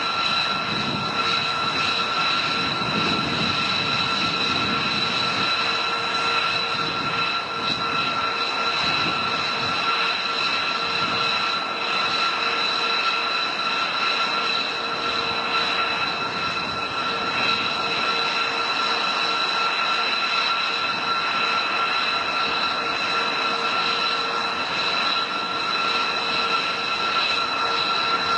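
Jet aircraft engines running at a steady pitch: a constant rush of noise with a high, unchanging whine.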